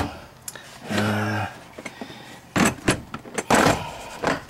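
Hand tools being handled and moved around in a metal tool box drawer: sharp clinks and a louder rattling scrape a little past halfway, with a brief low hum about a second in.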